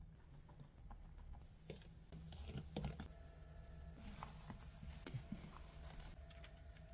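Faint, irregular light clicks and taps, a little busier about a third of the way in, like utensils or food being handled in a kitchen, over a low steady hum.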